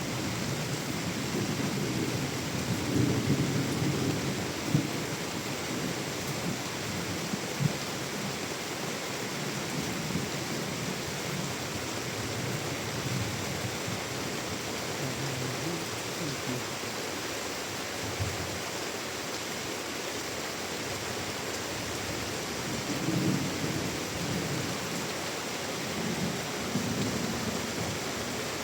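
Heavy monsoon rain falling steadily, with low rumbles swelling up a couple of seconds in and again near the end.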